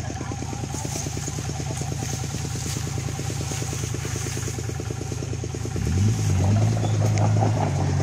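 Kubota L4708 tractor's diesel engine idling steadily with a fast even pulse, then revving up about six seconds in and holding at a higher speed.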